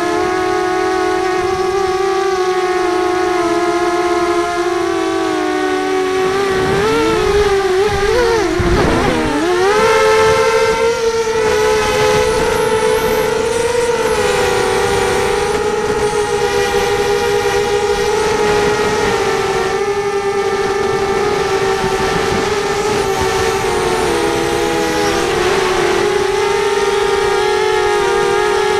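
Racing quadcopter's electric motors and propellers whining steadily at a held pitch. Around seven to ten seconds in, the whine dips sharply and swoops back up as the throttle is cut and punched again.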